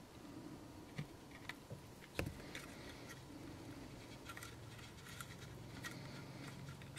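Light clicks and taps of fingers handling a plastic model locomotive shell while pressing a keep-alive onto mounting tape inside it, with the sharpest knock about two seconds in.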